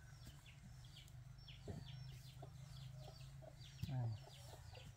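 Baby chicks peeping, many short falling peeps several a second, with a mother hen clucking softly among them.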